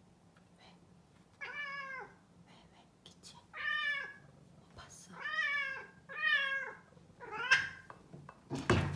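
A long-haired white cat meowing five times, each meow short and arching up then down in pitch, a second or so apart. A loud thump comes just before the end.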